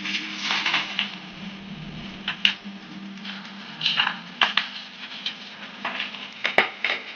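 Stir-fry meat sizzling and crackling on a hot flat-top grill, in irregular pops over a steady low hum, with two sharp metallic clicks from the cooking utensils.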